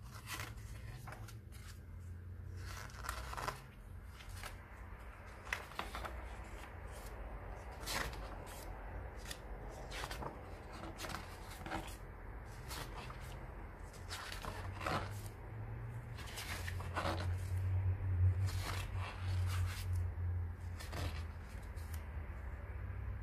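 Pages of a graphic novel being turned one after another, each a short papery rustle, roughly one a second, over a low steady hum.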